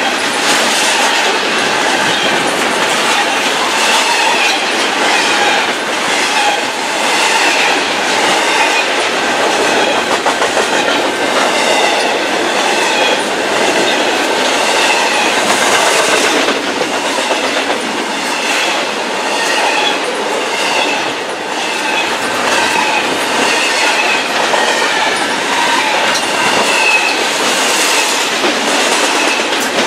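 Double-stack intermodal train's well cars rolling past at close range: a steady clatter of wheels over the rail joints, with a wavering high-pitched squeal from the wheels on the rail.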